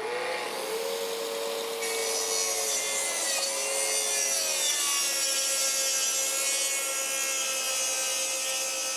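Track saw running steadily as it cuts through a sheet of maple combination-core plywood along its guide rail.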